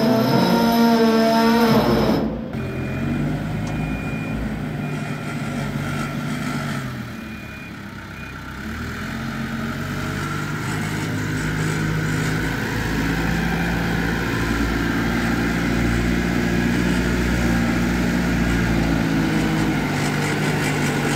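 About two seconds of music, then a Merlo P30.7 telehandler's engine running as it drives, dropping back for a moment and then building up again. A run of short, high beeps sounds a few seconds after the music stops.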